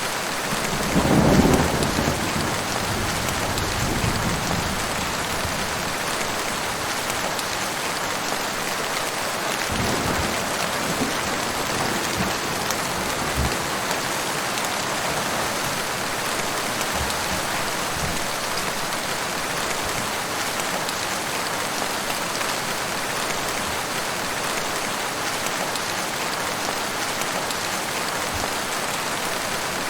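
Heavy rain falling steadily, with a rumble of thunder about a second in and a few fainter low rumbles later.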